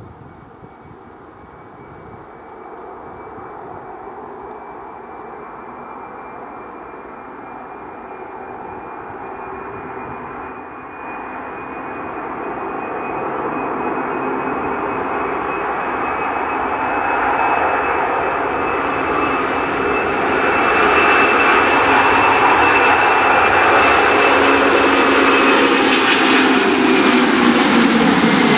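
Boeing 747-400 freighter's four GE CF6-80C2 turbofans at takeoff thrust, growing steadily louder as the jet rolls toward and lifts off, with a high fan whine over the jet roar. Near the end the pitch drops as it climbs past.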